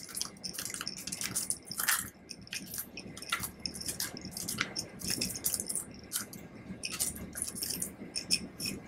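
Pumpkin seeds being tipped from a small glass bowl and spread over batter in a loaf pan, making a scatter of small, irregular clicks and light rattles.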